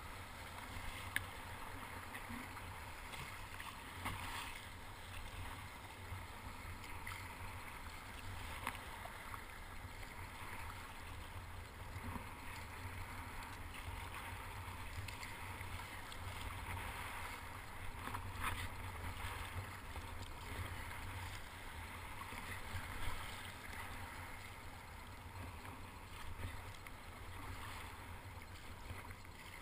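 Sit-on-top kayak being paddled through choppy sea, with water sloshing against the hull and paddle blade under a steady low rumble, and now and then a sharp knock.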